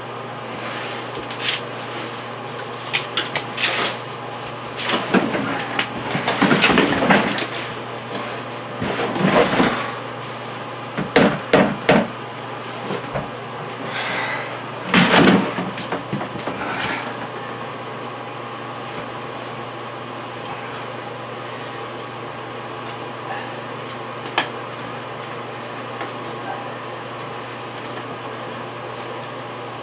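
Shovel scraping and dumping dirt to backfill a trench over new sewer pipe, in clusters of scrapes, rustles and clatter through the first half. After that only a steady low hum remains, with a single click later on.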